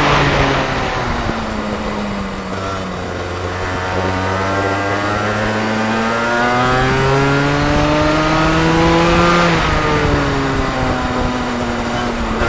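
125cc two-stroke kart engine heard onboard: revs fall off over the first few seconds as the kart slows, then climb steadily in a long rising whine under full throttle, drop sharply about ten seconds in as the driver lifts, and sag lower toward the end.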